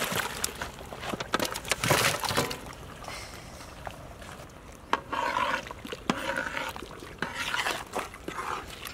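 Whole Indian mackerel (bangda) sliding off a tray and dropping into a large pot of coconut-milk fish-curry gravy: a busy run of wet splashes and clatter over the first two seconds or so, then a few softer splashes.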